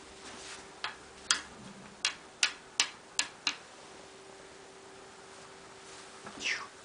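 A British Shorthair cat at ball play: a quick, uneven run of about seven sharp clicks over a couple of seconds, then, near the end, a short high cat call that falls in pitch.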